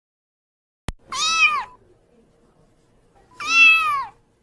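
A kitten meowing twice: two drawn-out meows about two seconds apart, each rising and then falling in pitch, the second louder. A single sharp click comes just before the first meow.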